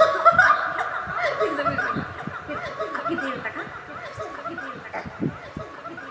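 Giggling laughter that grows quieter toward the end.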